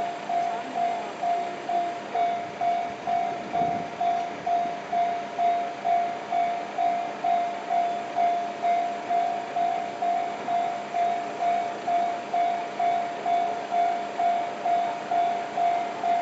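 Japanese level-crossing warning bell ringing in an even, repeating ding about twice a second, signalling that a train is approaching.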